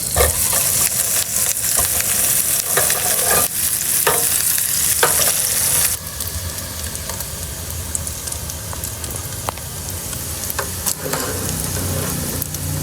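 Food sizzling in a pan, with a utensil stirring and clicking against it. The sizzle drops noticeably in level about six seconds in.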